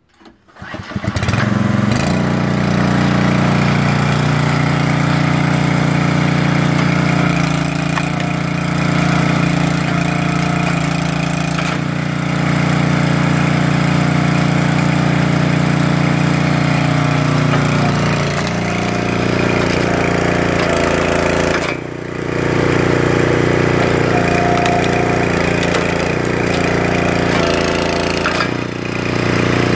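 Small gasoline engine of a 12-ton hydraulic log splitter starting with a couple of pulls, catching within the first second and then running steadily. Its pitch shifts a few times as the splitter works, with two brief drops in level.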